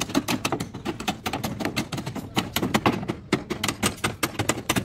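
Rapid, irregular sharp clicking and tapping, many clicks a second.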